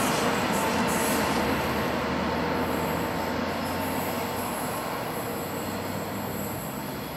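TGV Duplex double-deck high-speed train running away down the line: a steady rushing of wheels on rail that fades as it recedes, with a faint steady whine throughout.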